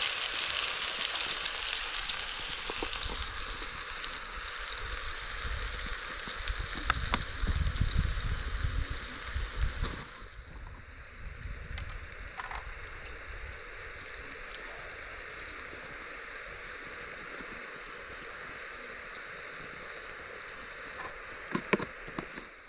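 Chopped tomatoes frying in oil in a pot over a wood fire: a steady sizzle, loud for about ten seconds and then quieter, with a few light clicks near the end.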